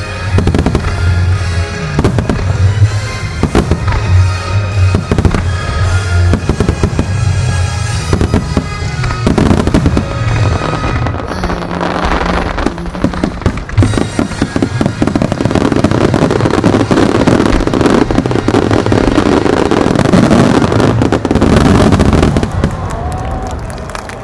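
Starmine fireworks display: aerial shells bursting in rapid succession over music, with sharp booms in the first half building to a dense, continuous finale barrage of bursts and crackle that stops shortly before the end.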